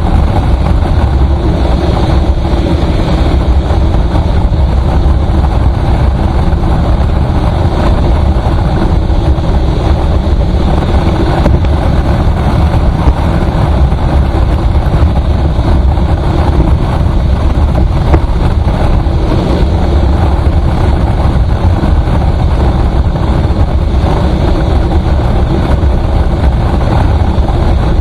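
Vehicle travelling at highway speed: a loud, steady rumble of engine, tyres and wind.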